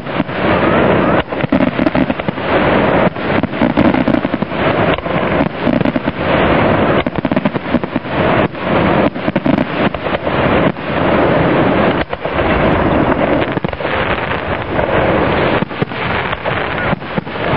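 A rapid barrage of aerial firework shells bursting one after another. The booms and crackle blend into a near-continuous din, broken only by brief lulls.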